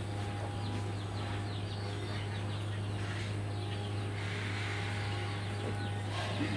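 Faint, rapid high chirps throughout over a steady low hum.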